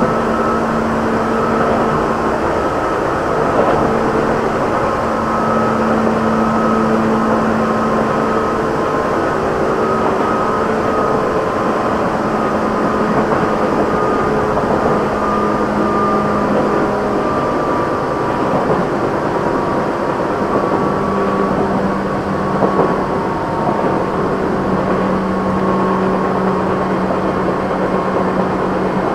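Tokyu 8500-series electric train running at speed: the steady hum of its traction motors and gearing over wheel-and-rail rumble. The motor hum drops a little in pitch past the middle, and there are a couple of brief knocks.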